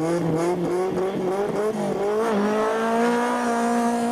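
Rally car engine revving up and down in quick blips at the start line, then rising about two seconds in and held at high revs as the car launches away.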